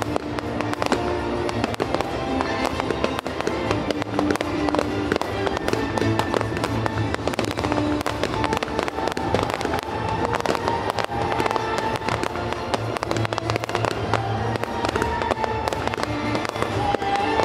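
A fireworks display with many shells bursting and crackling in rapid succession, over music playing throughout.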